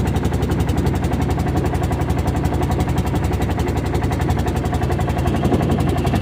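Small boat engine running steadily with a fast, even chugging.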